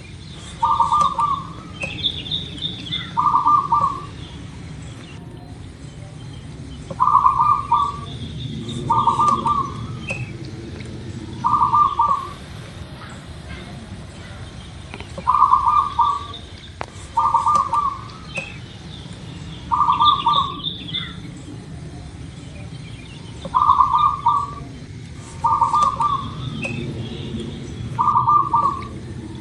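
Zebra dove (perkutut) cooing: loud, short coos, mostly in groups of three that repeat about every eight seconds, with fainter high chirps of smaller birds between them over a low steady hum.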